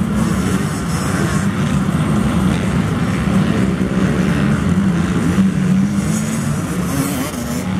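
Motocross bike engines running on the track, a steady loud drone that wavers up and down in pitch as the riders work the throttle.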